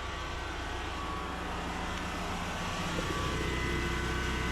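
A steady engine drone with a low hum, slowly growing louder.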